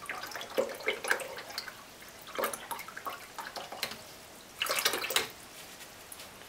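A watercolour brush being rinsed in a jar of water: three short bouts of splashing and swishing, the last the loudest.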